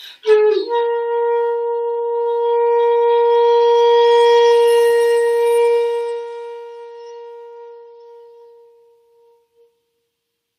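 Shakuhachi, the Japanese end-blown bamboo flute, sounding one long held note: a short dip in pitch as it begins, then a steady breathy tone that swells in the middle and fades away to nothing near the end.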